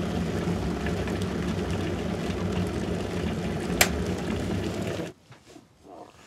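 Electric kettle running as it heats toward the boil: a steady rumble with a low hum, and one sharp click about four seconds in. The sound stops abruptly about five seconds in.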